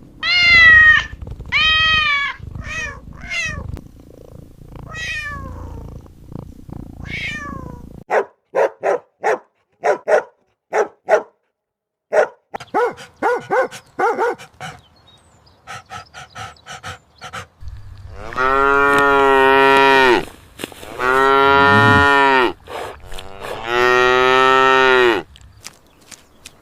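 A cat meowing several times in short rising-and-falling calls, then a run of short, quick animal calls. Near the end a cow moos three times in long, low calls.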